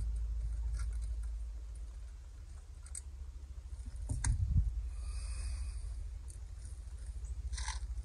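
Hand tool clicking and scraping on the bolts of a car's automatic transmission pan as they are worked loose, over a low steady rumble. A dull thump comes about four seconds in, and a quick run of small clicks follows near the end.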